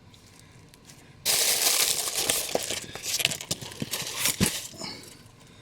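Packaging rustling and crinkling as it is handled, with many small clicks and crackles; it starts suddenly about a second in and dies away near the end.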